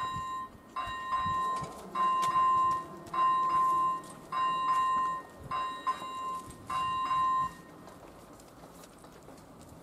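Electronic warning bell of an AŽD 97 railway level crossing ringing a repeated bell-like tone, about one strike a second, while the barriers lower. It stops about seven and a half seconds in, as the barriers reach the closed position.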